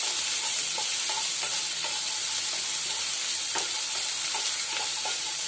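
Diced potatoes with onions and green chillies sizzling in hot oil in a kadai, stirred with a wooden spatula that scrapes and taps against the pan now and then.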